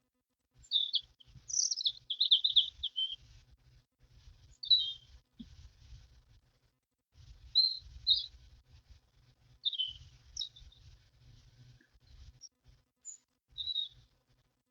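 Songbirds singing: short phrases of quick, high, sliding notes, one after another every couple of seconds, with a busier run about two seconds in. A low, uneven rumble sits underneath.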